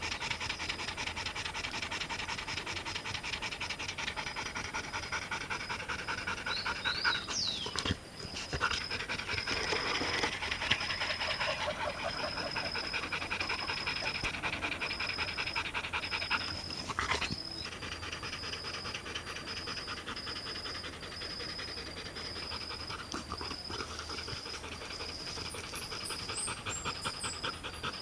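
A dog panting steadily and rapidly throughout. From about seven seconds in, a high chirp repeats at an even pace behind it, and a few short bird-like calls come near the start and the end.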